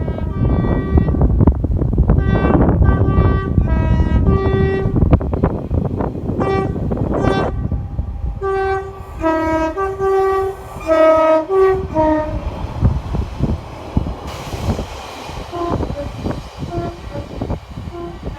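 Train horn sounded as a rhythmic string of short blasts, first on one note, then alternating quickly between a high and a low tone, over the low rumble of the train. The rumble fades about two-thirds of the way through.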